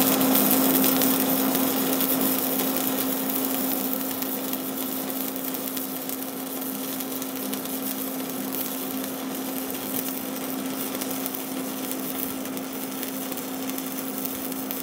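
Stick (MMA) welding arc burning a 3.2 mm 6013 electrode at 125 amps DC: a steady hiss that eases a little over the first few seconds, over a steady low hum. At this setting the rod runs a little bit hot.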